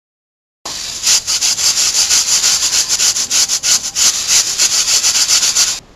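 Rain sound effect: a dense, crackling hiss of heavy rain that starts about half a second in and cuts off just before the end.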